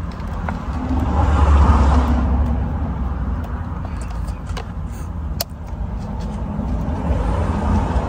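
A few small sharp clicks of a flathead screwdriver prying at the plastic airbag connectors on the back of a steering-wheel airbag module. Under them runs a low rumbling noise that swells about a second in, fades, and swells again near the end.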